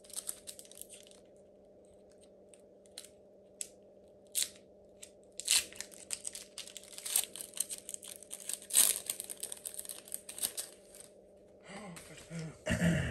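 Foil Pokémon booster pack being torn open and its wrapper crinkled, in a run of short, sharp rips and crackles.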